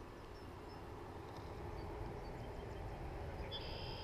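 Outdoor ambience: a low, steady rumble of wind on the microphone, with a few faint high chirps from birds and a short held whistling note near the end.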